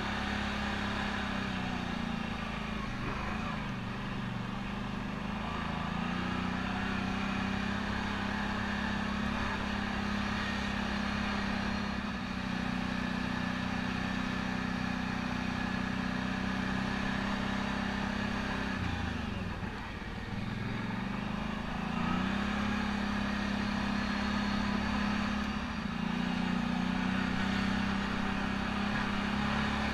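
ATV engine running while the quad is ridden along a dirt trail. Its pitch drops and climbs again a few times as the throttle is eased and reopened, most clearly just before the twenty-second mark.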